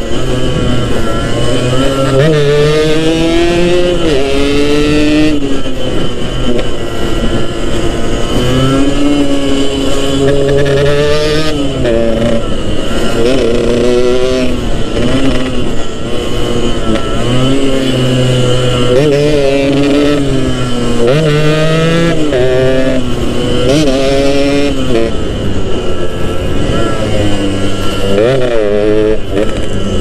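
Yamaha RX-King's two-stroke single-cylinder engine under way, revving up and easing off again and again: its pitch rises in repeated sweeps, then drops as the rider shifts gear or backs off the throttle.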